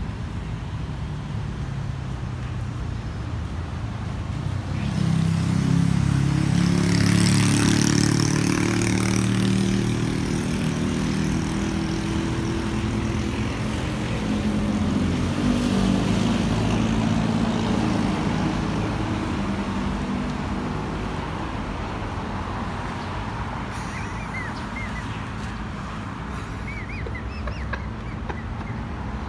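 Road traffic passing: a vehicle's engine swells up and goes by about five to ten seconds in, loudest around eight seconds, and a second one passes around fifteen seconds in, over a steady traffic rumble.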